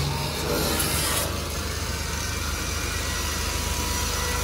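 Paint spray gun hissing with compressed air over the steady hum of an air compressor motor; the hiss gets stronger about a second and a half in.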